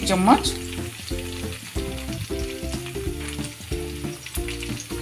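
Chicken wings shallow-frying in oil, a steady sizzle with small crackles, under background music of short repeating chords.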